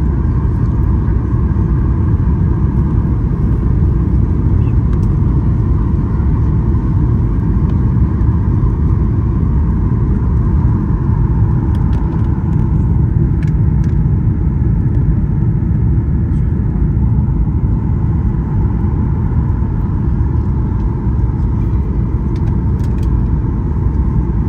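Airliner cabin noise heard from inside the cabin: a steady, unbroken low rumble of engines and airflow, with a faint steady hum higher up.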